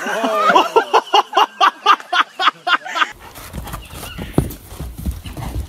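A woman laughing hard in a quick run of pitched bursts, about five a second, which stops suddenly after about three seconds. It gives way to a low rumble with a few thumps as a horse moves on sandy ground.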